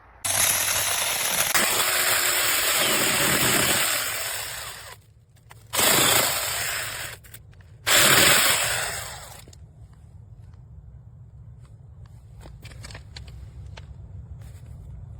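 Battery-powered 6-inch mini chainsaw running in three bursts: one of about four seconds, then two shorter ones of a second or so each.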